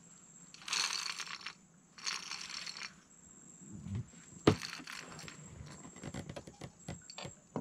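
Close handling noises: two short bursts of crinkling, a single sharp knock about halfway through, then a run of small irregular clicks. A faint steady high insect drone runs underneath.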